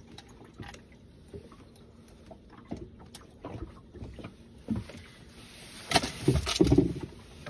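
Water lapping against a small boat's hull, with scattered light knocks, then a few louder slaps and thumps about six seconds in.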